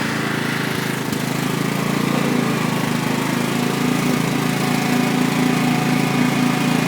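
Riding lawn mower's small engine running steadily under load while the machine drives.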